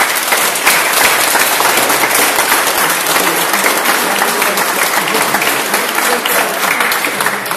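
A group of people applauding: loud, steady clapping from many hands, easing off slightly near the end.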